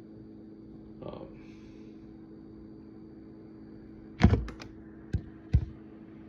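A few sharp knocks and clicks as copper pipe fittings and tools are handled, the loudest about four seconds in, over a steady low hum.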